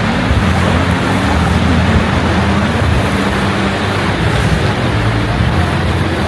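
A steady low motor hum over a loud, even wash of noise.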